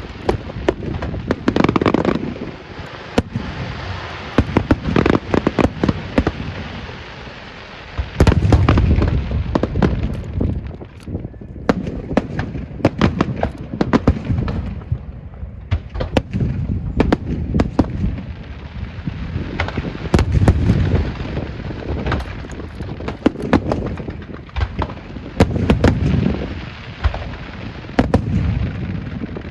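Fireworks going off in rapid, continuous succession: many sharp cracks and pops mixed with deep booms. The booms come in heavier clusters about a third of the way in, two-thirds of the way in, and near the end.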